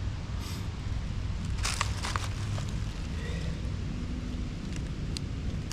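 Rustling and a few sharp clicks from a crawfish trap being handled, over a steady low rumble.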